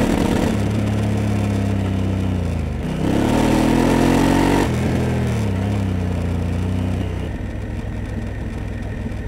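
Honda Africa Twin CRF1000L parallel-twin engine under way, its revs rising and falling with the throttle. There is a burst of acceleration about three seconds in, then it eases off and the engine note falls away over the last couple of seconds.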